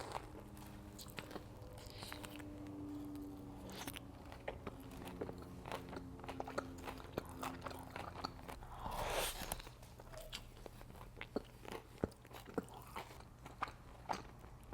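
Close-miked chewing of Wingstop chicken wings: many sharp crunches and wet mouth clicks, with a louder crunchy burst about nine seconds in, over a faint steady hum.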